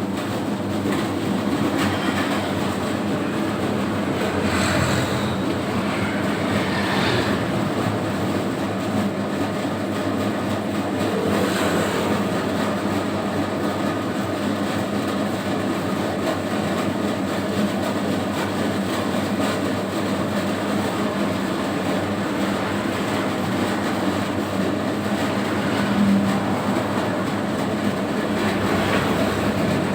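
Home-built 3 kg donut dough mixer running steadily under test, its motor and drive giving a constant hum with a dense mechanical rumble.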